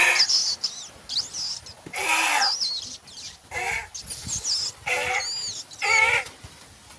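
Birds chirping, with several short wavering cries, each under a second, about one a second from two seconds in.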